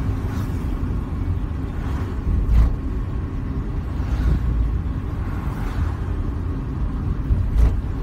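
Steady low rumble, with two heavier thumps, one about two and a half seconds in and one near the end.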